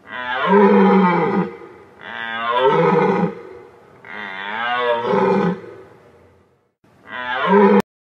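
An animal calling four times, each a long, drawn-out call with a low pitch, about a second and a half long. The third call wavers up and down in pitch, and the last is cut off suddenly.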